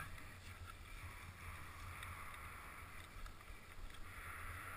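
Faint wind rumble and hiss on a helmet camera's microphone, with a few light handling knocks.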